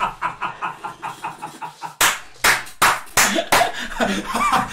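A man laughing hard in rapid bursts, then about five sharp smacks in quick succession, like hands clapping or slapping, about two seconds in.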